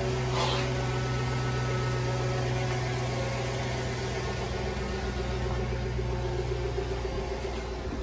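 2005 Chevy Tahoe's LS-family V8 engine idling steadily, with a short hiss about half a second in.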